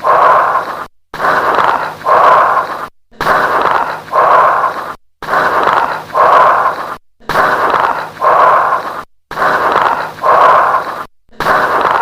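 Stethoscope recording of bronchial breath sounds with late-inspiratory crackles: a breath in and a breath out about every two seconds, each cycle followed by a brief silence, about six cycles in all. Bronchial breathing with late-inspiratory crackles is typical of lung consolidation.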